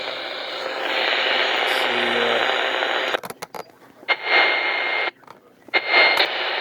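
Contron portable shortwave radio putting out static hiss from its speaker between stations. The hiss cuts out twice for under a second, with clicks at the breaks, and a thin whistle sounds in it near the end.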